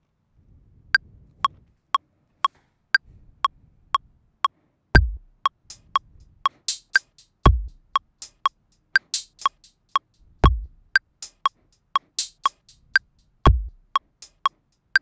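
Ableton Live's metronome clicking about twice a second, every fourth click accented, through a two-bar count-in. Once recording begins, drum-machine hits from the Analog Kit drum rack, played live from a MIDI keyboard, join in: a deep kick on every few beats and occasional bright, noisy higher hits, over the continuing clicks.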